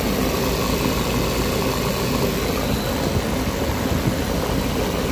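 Mini bus engine idling steadily, running again after standing unused since 2010.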